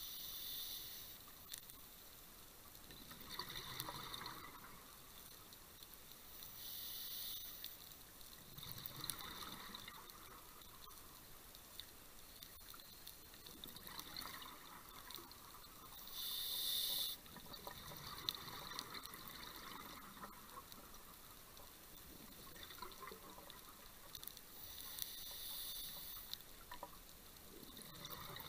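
Scuba diver breathing through a regulator underwater: a hiss with each breath in and a bubbling gurgle of exhaled air, coming back every few seconds, the loudest breath a little past halfway.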